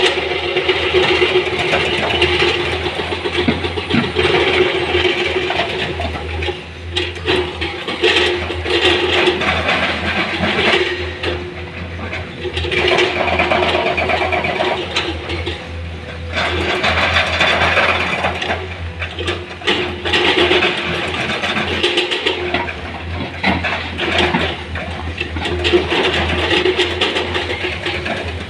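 Heavy-equipment diesel engine running steadily under load, with repeated surges of louder hissing and clattering noise every few seconds.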